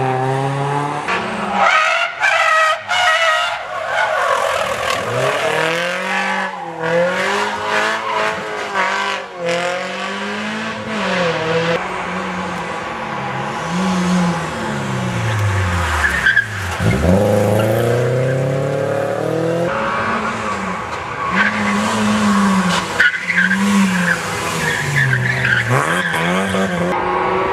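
Rally cars at racing speed on a tarmac stage, their engines revving high and dropping over and over through gear changes and throttle lifts, with tyres squealing. About two-thirds of the way through, one car passes close and its engine note falls sharply.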